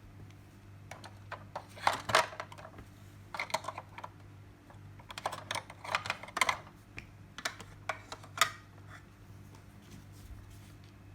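Small plastic toy pieces clicking and tapping as they are handled, in irregular clusters of quick clicks with pauses between them.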